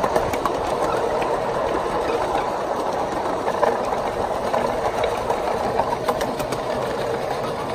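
Ride-on 1-inch scale miniature train running along its track: a steady mechanical clatter of the locomotive and the cars' wheels on the rails, with scattered small clicks.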